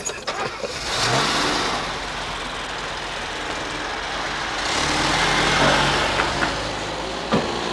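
A car's engine running as the car pulls away and drives off, with the engine and road noise swelling twice.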